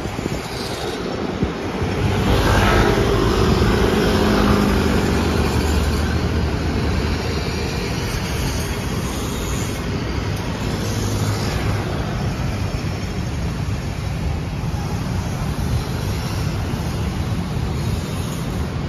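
Street traffic noise: a steady hum of road vehicles, with one vehicle passing louder about two to five seconds in.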